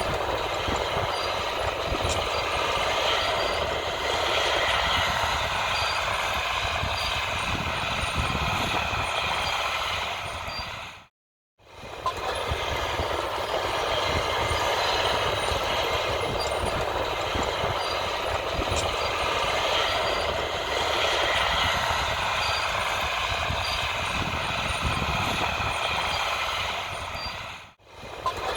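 Diesel engines of big vintage farm tractors (IH 5288 and White 4-210) running steadily. The sound cuts out to silence twice, briefly about 11 seconds in and again near the end.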